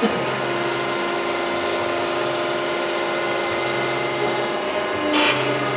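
Okamoto ACC-1224DX automatic surface grinder running, its hydraulic pump and wheel spindle giving a steady hum as the table traverses in plunge-grinding mode. A short click at the start, and a brief burst of harsher noise near the end.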